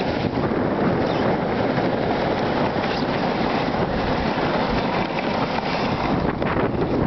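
Steady rushing noise of riding a plastic sled fast down a packed-snow track: the sled scraping and hissing over the snow, with wind buffeting the microphone.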